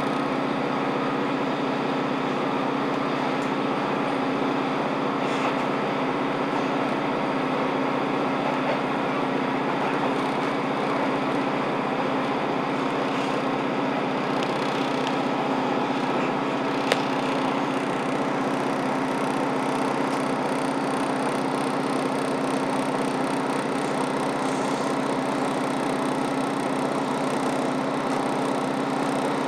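Steady running noise inside a moving diesel passenger train: an even engine hum under the rush of wheels on the rails. One sharp click about halfway through.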